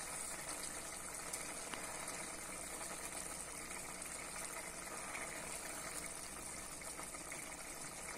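Thick bitter gourd tamarind curry simmering in a pan on a gas burner, a faint, steady bubbling, with a few light taps as a wooden spatula stirs it.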